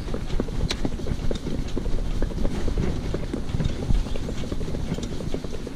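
Shetland pony's hooves clip-clopping steadily on a paved path as it pulls a harness cart.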